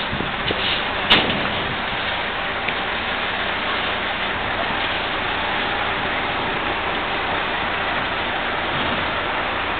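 Steady outdoor din, a hissing mix of crowd murmur in an open square, with one sharp click about a second in.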